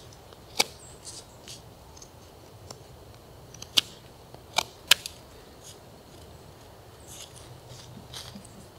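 A knife whittling a bark-covered stick into a makeshift spoon: scattered short shaving and scraping strokes, a few of them sharp and clicking, the loudest about half a second, four and five seconds in.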